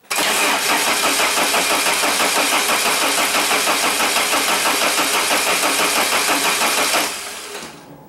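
Saab 9000's 2.3-litre four-cylinder engine being turned over by the starter motor, cranking with an even, rhythmic pulse for about seven seconds without firing, then stopping. It will not catch because the fuel pump is not switching on.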